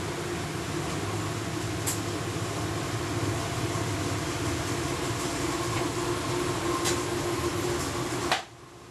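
Steady indoor room noise: a low machine hum over an even hiss, with a couple of faint clicks. It cuts off suddenly near the end, leaving a quieter hiss.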